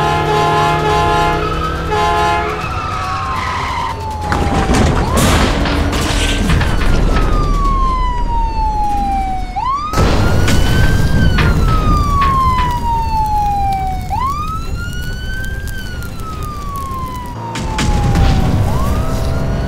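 Police car siren wailing: long slow falling sweeps, each snapping sharply back up, about every four seconds, over rumbling vehicle noise. There are bangs around five seconds in and a rise in rumble near the end.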